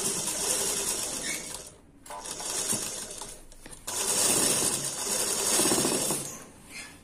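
Sewing machine stitching in three short runs with brief stops between them, the fabric being pleated into small gathers by hand as it is sewn. The last run fades out about a second before the end.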